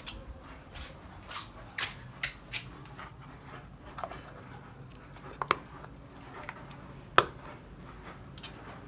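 Scattered sharp clicks and knocks from small plastic wheel caps being handled and pressed onto a car's wheels. The loudest knocks come about five and a half and seven seconds in.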